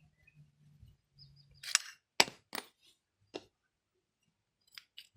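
A series of sharp metallic clicks and clinks, the loudest about two seconds in, as worn brake pads are worked out of a Bajaj Pulsar motorcycle's disc brake caliper.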